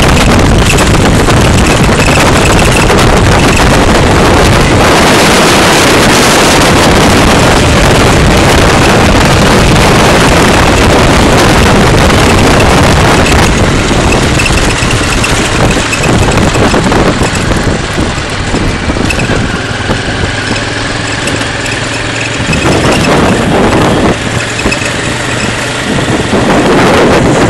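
Heavy wind rushing over the microphone of a camera mounted on a moving motorcycle, with the motorcycle's engine running underneath. About halfway through it gets somewhat quieter.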